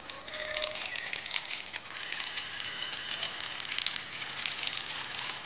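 Plastic masala sachets crinkling as spice powder is shaken out of them over a pan of noodles, a dense run of small crackles and rustles.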